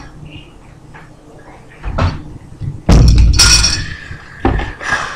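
Handling noise from unboxed items: a few knocks and clatter as things are picked up and set down, the heaviest thump about three seconds in.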